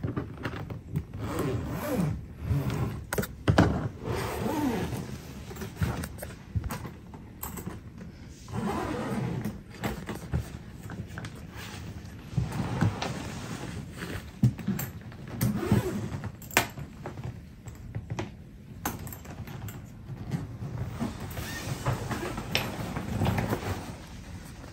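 Zipper of a Qantas Centenary hard-shell suitcase being pulled open in several rasping runs around the case, mixed with clicks and knocks from the zip pulls, the combination-lock latch and the shell being handled.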